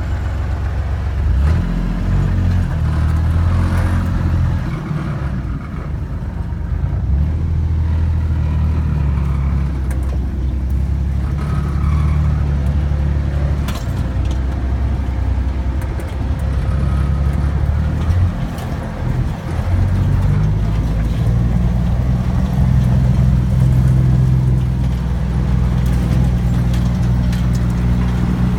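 Vehicle engine running in low gear over rough ground, its pitch stepping up and down as the load changes, with occasional knocks and rattles.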